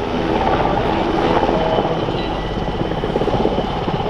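NH90 twin-engine military helicopter flying close by: a rapid, even beat of the main rotor blades with a steady turbine whine above it.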